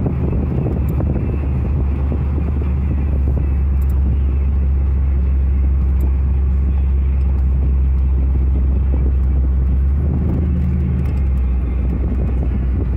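The V8 of an LS-swapped Chevrolet S10 pickup running under way with tyre and road noise, heard from inside the cab as a steady low drone. The engine note shifts briefly about ten seconds in, then settles again.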